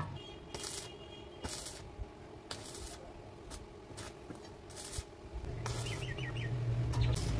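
Electric arc welding on steel square tubing: a row of short tack welds, each a brief burst of arc noise, about one a second. A bird chirps quickly a few times near the end.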